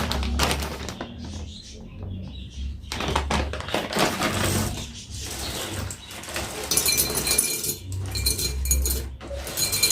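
Rustling and irregular knocking of things being handled and set down, with a steady high-pitched whine joining about two-thirds of the way in.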